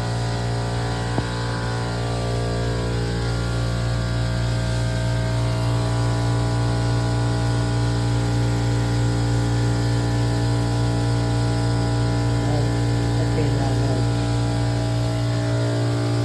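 Steady machine hum with several fixed tones and a strong low drone, holding at one level throughout.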